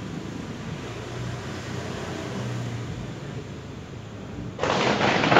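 Thunder: a low, steady rumble, then about four and a half seconds in a sudden loud crash as a nearer thunderclap breaks.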